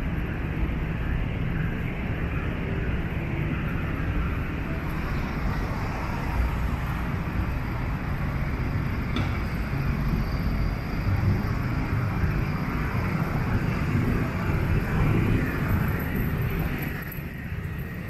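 Road traffic on a city street: a steady rumble of passing engines and tyres that eases off about seventeen seconds in.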